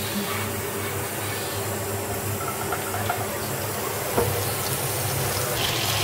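A steady hiss and low hum with a single knock about four seconds in. Near the end, a louder sizzling starts as cubes of pork fat (shpik) fry in a mix of butter and vegetable oil in a frying pan.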